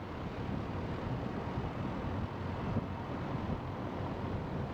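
Steady rumble of a car's tyres and engine at low speed on a rough country lane, with some wind noise on the microphone.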